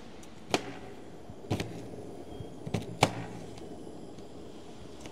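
Four sharp knocks, spaced about a second apart with the last two close together, of a kitchen knife striking a cutting board as onions are cut, over a steady background hiss.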